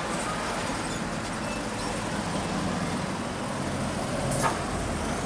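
Heavy road vehicle passing: engine and tyre noise slowly growing louder as it approaches, with a brief sharp noise about four and a half seconds in.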